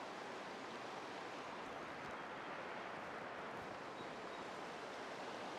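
Steady rush of a rocky mountain stream running over stones, an even hiss of water.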